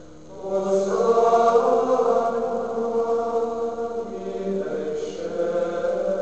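Men's voices singing Gregorian chant together in long held notes: monks of a Benedictine monastery singing the Latin Mass. The singing swells in about half a second in, and a new phrase begins near 5 seconds.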